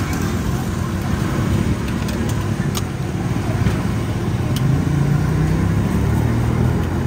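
Street traffic: a steady rumble of passing vehicles, with one engine close by growing louder and rising in pitch from about four seconds in. A couple of sharp clicks.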